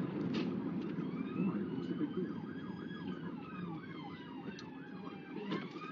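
Emergency vehicle sirens heard from inside a moving car: a fast yelp of about three to four sweeps a second and a slower wail rising and falling together, coming in about a second in, over steady road noise.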